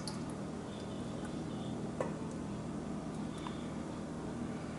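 Steady low background hum with a few faint, isolated clicks, such as light kitchen handling.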